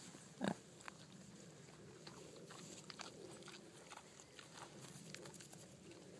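Kunekune pigs grazing close by, tearing and chewing grass: a faint run of small, irregular crisp clicks and rips, with one louder snap about half a second in.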